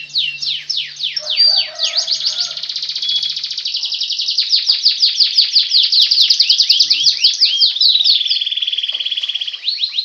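Canary singing: a long, fast, almost unbroken run of rolling trills and quick downward-sweeping notes.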